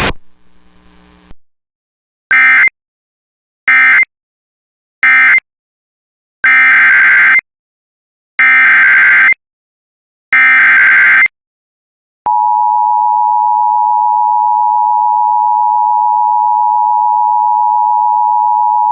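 Emergency Alert System data bursts: three short end-of-message bursts, then three longer SAME header bursts, each a harsh buzzing screech. About 12 seconds in, the steady two-tone EAS attention signal starts and holds.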